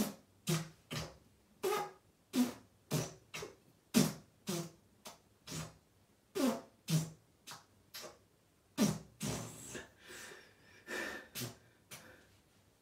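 A fast run of short, sharp farts deliberately pushed out one after another, about two a second. Between them comes the sound of air being sucked back into the rectum to reload. A few longer, breathier sounds come about nine to eleven seconds in.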